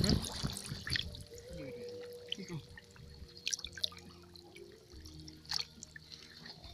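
Swamp water splashing and dripping as someone wades through it, with a few separate louder splashes.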